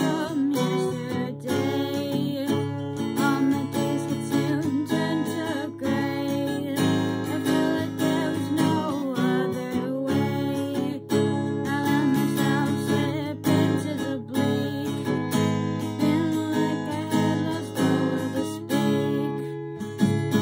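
Steel-string acoustic guitar with a capo, strummed steadily in chords, with a voice singing over it.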